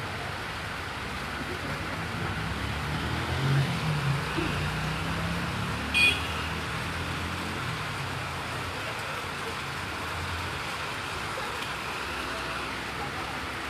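Steady hiss of heavy rain. A low rumble swells about two seconds in and fades by about eight seconds, and a brief sharp high-pitched sound stands out about six seconds in.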